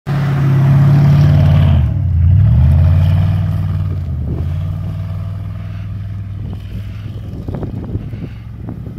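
Pickup truck engine revving hard as the truck pulls away through deep snow; the pitch drops briefly about two seconds in, climbs again, then the engine sound steadily fades as the truck moves off.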